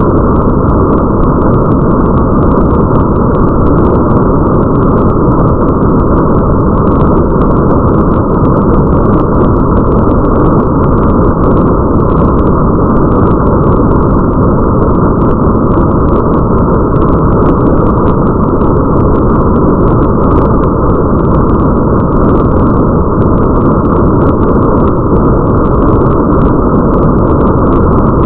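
Steady, muffled rain ambience: a dense, deep, even noise with faint ticks of drops pattering on top, never changing.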